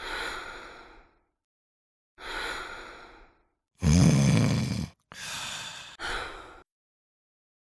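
A person's sleepy breathing and sighs: two long exhales that fade away, a louder, heavier breath about four seconds in, then two short quick breaths in a row as the dozing sleeper startles awake.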